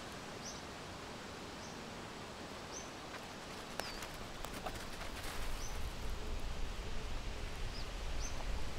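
Steady outdoor background noise with a small bird giving short high chirps about once a second. A few faint clicks and rustles come in the middle, and a low rumble rises from about halfway.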